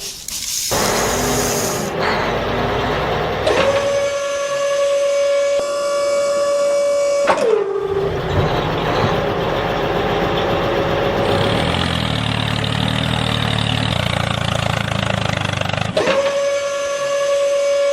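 Small electric motor of a homemade mini wheat thresher running with a steady high whine, which sags in pitch as it comes under load. It gives way to long stretches of rough, noisy churning. The steady whine returns near the end.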